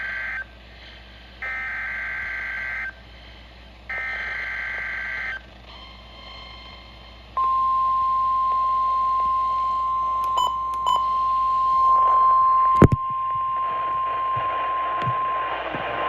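NOAA Weather Radio emergency alert: warbling bursts of the SAME digital header (the end of one burst, then two more, each about a second and a half), followed about seven seconds in by the steady 1050 Hz warning alarm tone, which holds to the end. A sharp click sounds about thirteen seconds in, and a hissy noise rises under the tone near the end.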